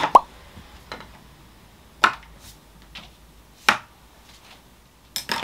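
A few separate sharp clicks and knocks about a second apart, with a busier clatter near the end: a capsule coffee machine's lid being shut and a glass of iced coffee being handled.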